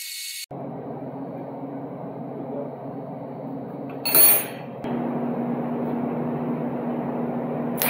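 Oxy-acetylene torch burning with a steady hiss as it is brought up to heat a stuck, cross-threaded exhaust bolt so it can be worked loose, with a brief loud burst about four seconds in.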